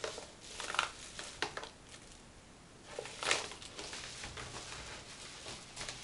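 Paper rustling and crinkling in irregular bursts as a wrapped package is handled and unwrapped, the loudest crinkle about three seconds in.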